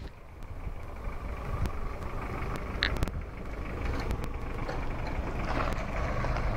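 Van engine running as the vehicle drives slowly up close, its low hum growing steadily louder.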